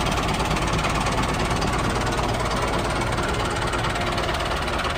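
A tractor's diesel engine running steadily with a fast, even chugging beat.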